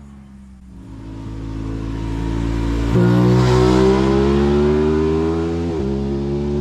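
Aprilia 660 parallel-twin motorcycle accelerating hard, growing louder and rising in pitch, with a quick drop in revs near the end as it shifts up a gear before pulling again.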